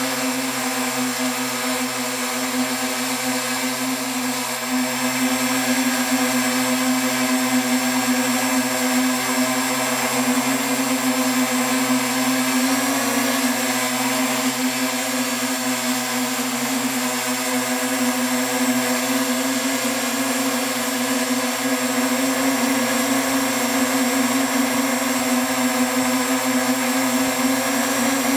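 Octocopter's eight electric motors and propellers humming steadily, heard close up from the onboard camera, with one strong steady pitch. The hum grows a little louder about five seconds in.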